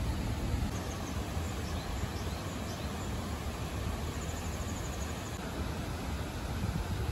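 Steady rush of a shallow rocky river tumbling over a small weir, with a few faint bird chirps and a short high trill about four seconds in.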